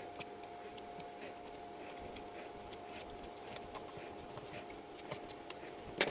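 Faint scattered light clicks and taps as fingers work a rubber sealing ring into its seat on a drain pump's motor housing, with a sharper click near the end, over a faint steady hum.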